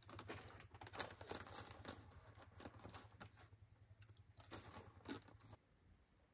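Plastic snack bag crinkling and rustling as it is handled, a string of quick crackles that cuts off abruptly about five and a half seconds in.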